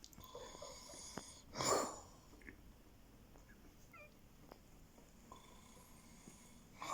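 A man snoring in his sleep: one loud snore about a second and a half in, and another starting near the end.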